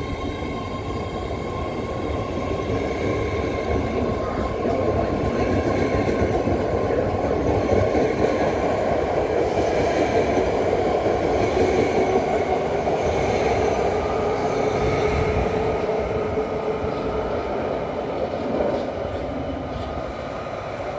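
BART train pulling out of the station: the rolling noise of its cars and motors on the rails builds, is loudest about halfway through, then fades as the train runs off down the track.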